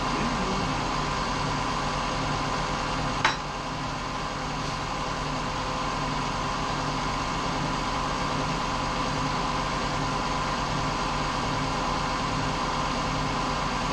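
A steady hum with several constant tones throughout, from an unseen machine or appliance. A single sharp knock about three seconds in.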